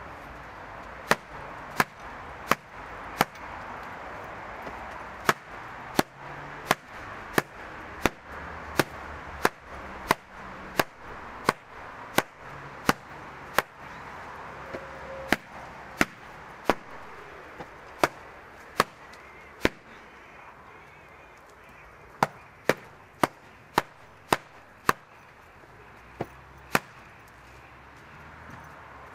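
Carpet beater whacking stuffed cushions on a wooden table: a long series of sharp slaps, about one every two-thirds of a second. They pause for a couple of seconds about twenty seconds in, then come back in a quicker run.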